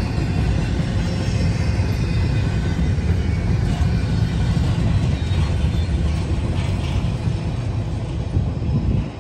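Double-stack intermodal freight train cars rolling past on the rails with a steady low rumble and wheel noise. The sound drops off near the end as the last car goes by.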